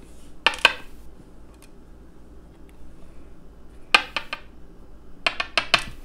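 Sharp, light metallic clicks of small padlock parts being handled and set down on a desk. There are two clicks about half a second in, a quick run of four around four seconds in, and five more just before the end.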